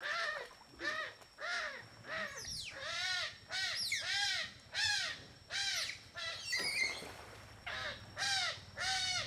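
An animal calling over and over: a regular run of harsh, arching calls, each rising and falling in pitch, about two a second, with a brief pause about two-thirds of the way through.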